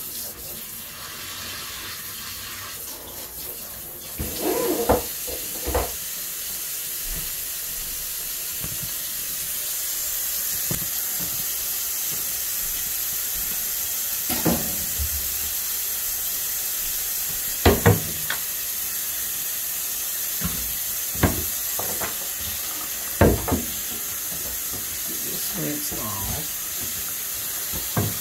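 Kitchen faucet running steadily into a stainless steel sink, the water splashing in the basin. About six sharp knocks and clatters of handling in the sink are scattered through it.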